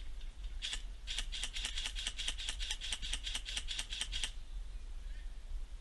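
Airsoft gun firing a fast string of sharp clicking shots, about six a second for some three seconds, after a single shot under a second in, then stopping suddenly.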